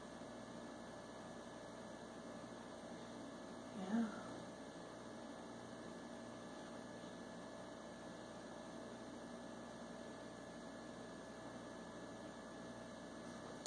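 Quiet room tone dominated by a steady electrical hum. About four seconds in, one brief, short voice-like sound.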